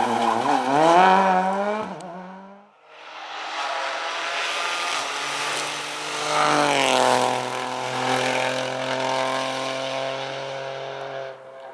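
Rally car engine revving hard, its pitch rising and falling quickly as it drives, until it breaks off about two and a half seconds in. Then a second rally car runs past: its engine note drops in pitch as it goes by about halfway through, holds steady, and cuts off near the end.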